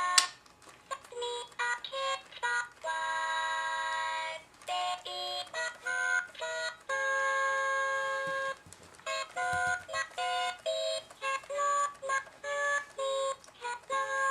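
Fisher-Price Singamajigs singing toy playing its electronic song in a string of short and held notes with gaps between them. A sharp click comes just after the start.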